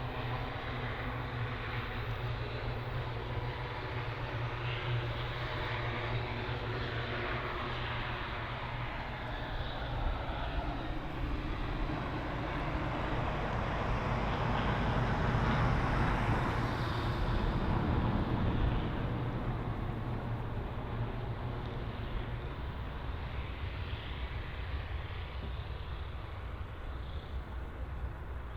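Airliner's engines as the aircraft passes close by. The rumble and whine build to a peak about halfway through, then fade.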